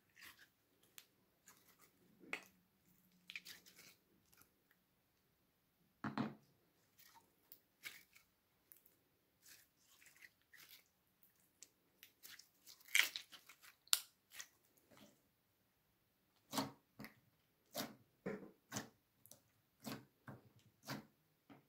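Clear glitter slime being squeezed and kneaded by hand, giving irregular wet squelches and small clicking pops, with a quicker run of pops near the end.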